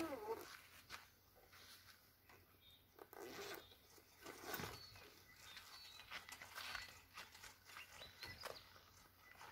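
An insect buzzes briefly at the very start, then faint, scattered rustling and scraping as the zippered travel cover of a Rhino Rack Batwing awning is unzipped by hand.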